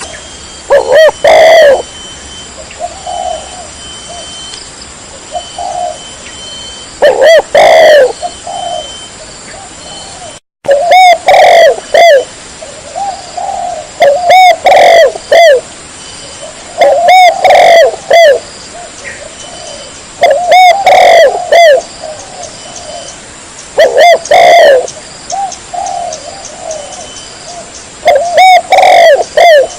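Spotted dove cooing in loud repeated phrases every few seconds, so close and loud that the coos clip and distort, with softer coos in between. A brief cut to silence comes about ten seconds in.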